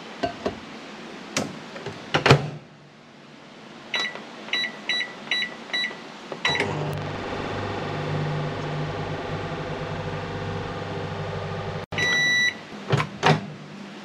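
LG microwave oven in use: the door shuts with a thump, the keypad gives a series of short beeps, then the oven runs with a steady low hum. The hum stops abruptly, a longer end-of-cycle beep sounds, and the door latch clicks open.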